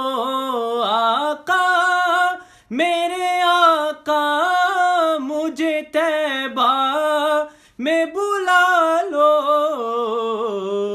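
A man's solo voice singing a naat unaccompanied, in several long, ornamented phrases with short breaks for breath between them. The last phrase is held and sinks lower near the end.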